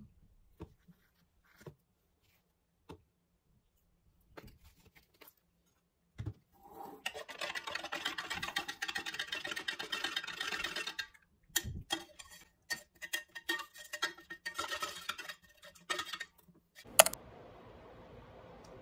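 Small clicks and taps of a scoop and plastic powder tub, then several seconds of continuous noisy clattering and rustling with a few thumps as a drink is mixed in a stainless-steel tumbler, ending in one sharp click.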